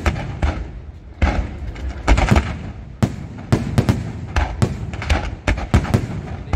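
Aerial firework shells bursting in quick succession during a fireworks display: many sharp bangs, one after another, with a steady rush of noise between them.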